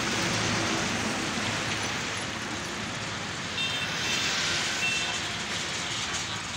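Steady road traffic noise from a busy street, with two short faint high tones a little past the middle.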